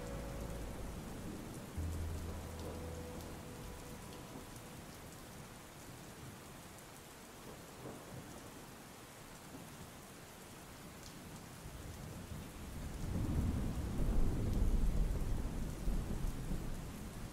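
Steady heavy rain, joined about two-thirds of the way through by a low rumble of thunder that swells and rolls on to the end.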